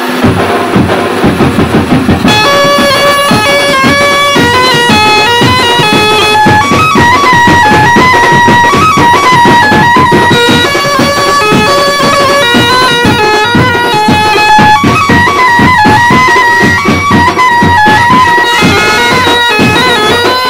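Background music: a piped melody over a steady drum beat, with the melody coming in about two seconds in.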